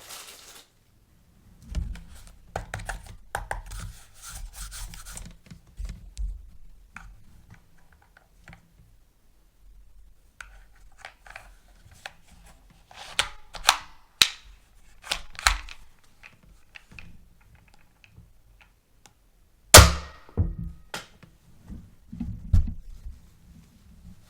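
Plastic toys and packaging being handled: scattered clicks, knocks and rustling, with one loud sharp snap near the end.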